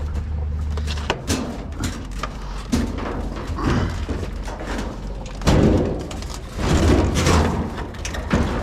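Thumps, knocks and clatter of scrap being handled, with the loudest thuds about five and a half and seven seconds in. A low steady hum stops about a second in.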